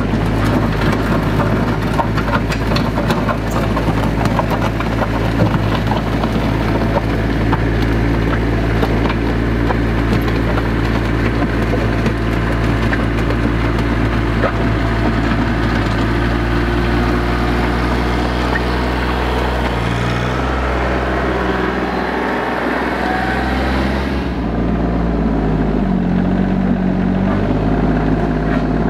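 RK 24 subcompact tractor's three-cylinder diesel engine running steadily as it grades dirt with its loader bucket. Its note dips about twenty seconds in, then rises again a few seconds later.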